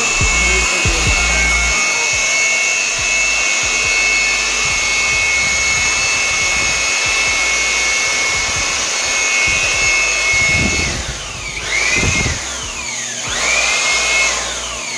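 Jon Bhandari handheld electric blower running steadily, with a high motor whine over rushing air from its nozzle. About eleven seconds in it is switched off. It is then switched on briefly twice, and each time the whine rises and dies away.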